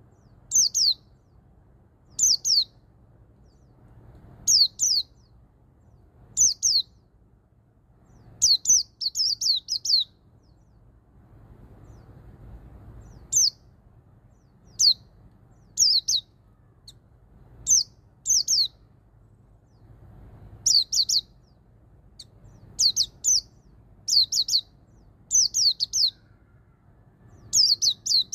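White-eye (pleci) singing in the 'ngalas' style: short phrases of one to about five quick, high, downward-sweeping notes, repeated every second or two, with a pause of a few seconds in the middle.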